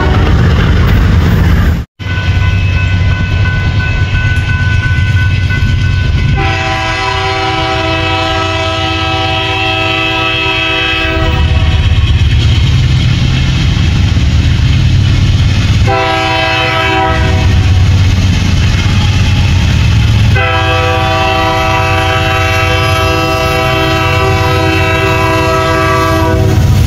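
Diesel locomotive's multi-chime air horn sounding a long blast, a short blast and another long blast over the steady rumble of the passing train. The sound drops out for an instant about two seconds in.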